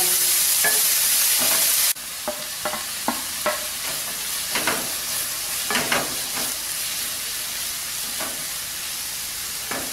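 Sliced vegetables sizzling in oil in a nonstick kadai, stirred and scraped with a wooden spatula. The sizzle is loud at first and drops suddenly about two seconds in. Scattered scrapes of the spatula against the pan follow.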